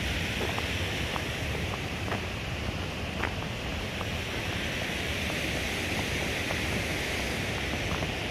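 Steady rushing of a waterfall, with a few faint clicks scattered through it.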